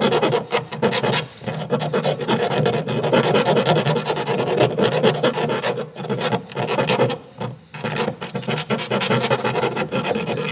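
A screwdriver scraping and rubbing rapidly around a freshly drilled hole in a car's wheel-arch sheet metal: a continuous rasping with a few brief pauses.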